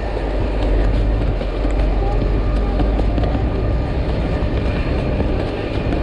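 Fire truck's engine running with a steady low rumble that eases off about four and a half seconds in, over the rustle and scrape of flat canvas fire hose being hauled off the truck's hose bed.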